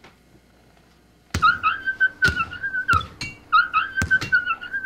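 Blows landing on a body, about six dull thuds starting a little over a second in, with a high wavering whistle-like tone held in two stretches between them.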